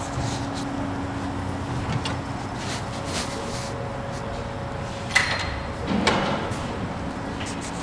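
Steady low workshop hum with two sharp clanks, about five and six seconds in.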